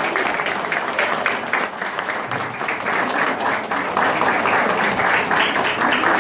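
Audience clapping: many hands making a dense, continuous applause.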